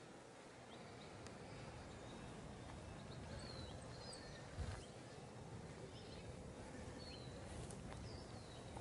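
Faint outdoor ambience: a steady hiss with a few short, high bird chirps, and a single dull thump about halfway through.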